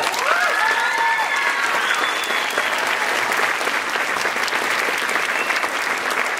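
Audience applauding steadily, with cheering whoops in the first couple of seconds.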